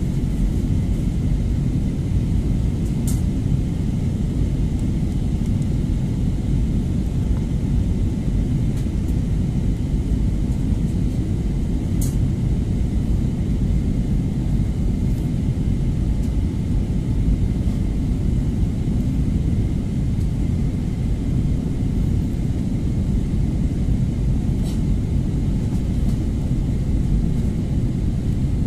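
Steady cabin noise inside a Turkish Airlines jet airliner on its descent to land: an even, low rumble of the engines and rushing air past the fuselage. A few faint clicks sound over it, one about twelve seconds in the clearest.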